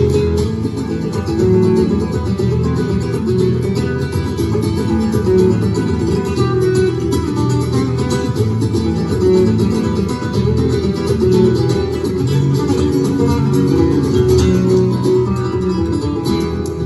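Two acoustic guitars playing a flamenco-style duet live, with rapid picked notes over a steady rhythm, heard through the hall's sound system.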